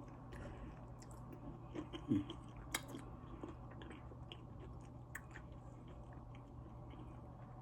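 A person chewing food close to the microphone, with soft, irregular wet mouth clicks.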